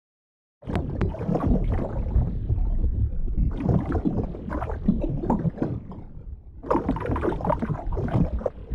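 Water splashing and gurgling, a dense run of small irregular splashes that starts abruptly about a second in and eases briefly about two-thirds of the way through before picking up again.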